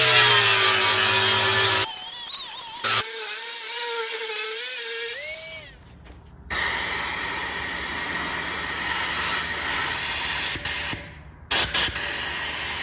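Handheld power tool working metal in several short segments that start and stop abruptly. Its motor pitch sags and wavers as it is pressed against the work, then gives way to a steadier noisy stretch.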